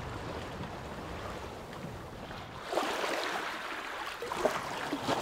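Water rushing and splashing along a sailing yacht's hull as it moves under sail, with low wind rumble on the microphone. The splashing grows louder a little past halfway.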